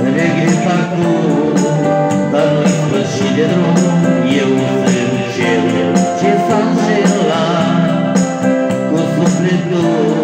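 A man singing into a microphone over electronic keyboard accompaniment, with a steady beat.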